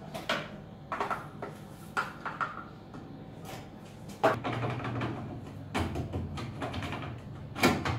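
Plastic detergent dispenser drawer of a Samsung top-load washing machine being handled and pushed shut: a series of light clicks and knocks, the loudest about halfway through and again near the end.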